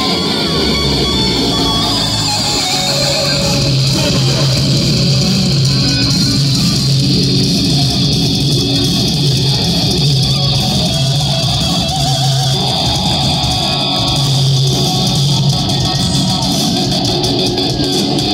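Live rock band playing loud on amplified electric guitar and bass guitar.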